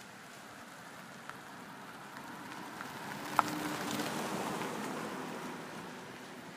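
A car passing close by on a wet road: the hiss of its tyres through the water swells, peaks about two thirds of the way in and fades away. A single sharp click sounds just before the peak.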